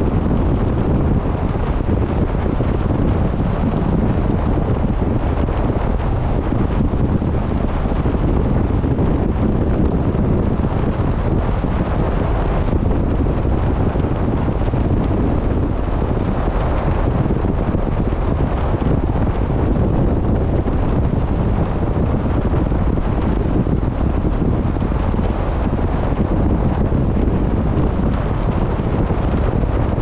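Wind buffeting the microphone on a boat at sea: a steady, heavy low rumble, with the wash of the sea beneath it.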